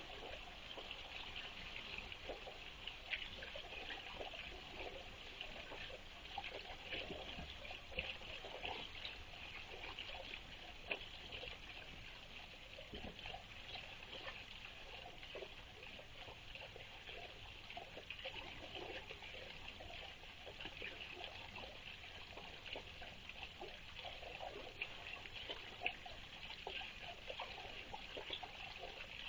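Water trickling steadily into a small garden pond.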